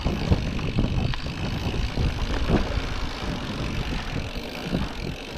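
Mountain bike rolling along a dirt forest trail: tyres on dirt and leaves with the bike rattling over small bumps, and wind rumbling on the microphone.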